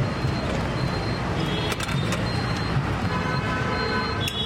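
Street traffic noise: a steady low rumble of passing motor vehicles. A couple of sharp clicks come in the first two seconds. A high pitched tone holds for about a second near the end.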